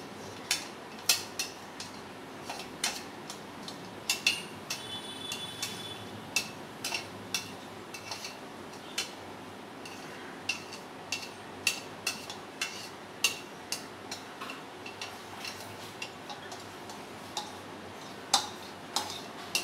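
A spoon clicking and scraping against the inside of a small plastic jar as thick chilli paste is scooped out: irregular sharp clicks about one or two a second, with a few louder knocks near the end.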